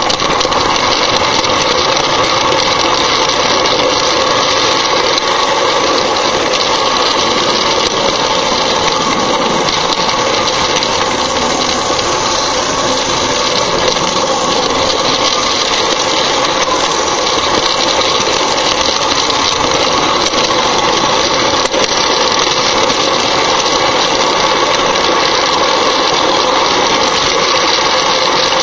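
Lionel 243 O-scale model steam locomotive running around the track, heard close up from a car it is pulling: the loud, steady running noise of the toy train's motor, gearing and wheels on the rails, unbroken throughout.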